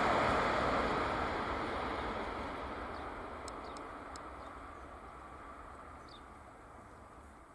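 Italo high-speed train receding after its pass, its running noise fading steadily away.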